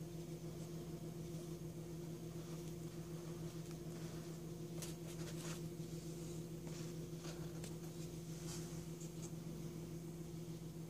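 Faint taps and scrapes of small plastic Play-Doh tubs being lifted and set down on a tabletop, a handful of them between about five and nine seconds in, over a steady low hum.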